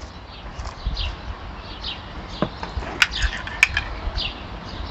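Small birds chirping repeatedly in the background. About three seconds in, two sharp clinks ring out, a metal spoon tapping against a ceramic ramekin of mustard.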